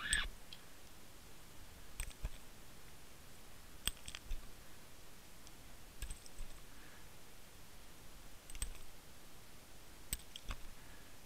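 Sharp clicks and knocks, roughly one every two seconds, over a faint hiss, picked up underwater by a Water Wolf camera rigged on a fishing line as the rig moves and bumps.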